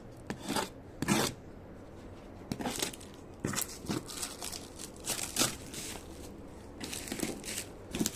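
Stanley knife cutting through packing tape and cardboard on a box: a series of short scraping cuts and rips, with some cardboard rustling between them.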